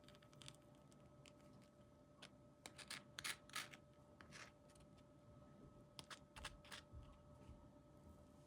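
Near silence with faint handling noises: scattered light clicks and scratches in two short clusters, about two to four seconds in and again about six to seven seconds in, over a low steady hum.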